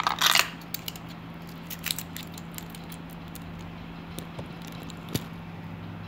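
Metal multi-tool being handled: a short scraping metallic rattle at the start, a few quick clicks about two seconds in and a single click near the end, over a steady low hum.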